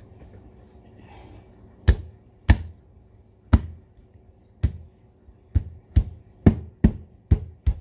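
Sharp knocks as a hand strikes the top of a plastic apple slicer-corer to drive its blades down through a firm apple onto the cutting board. About ten knocks, starting about two seconds in and speeding up from about one a second to about two a second. The apple is too hard to push through by pressing alone.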